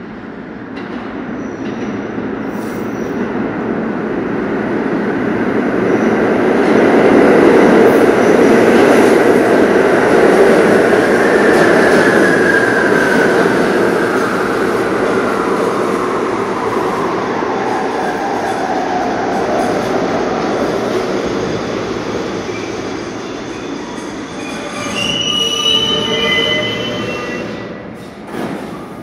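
General Electric R32 subway train pulling into a station: a loud rumble of wheels on rail that builds as it passes, then a whine falling steadily in pitch as the train slows. Near the end, brakes squeal as it comes to a stop.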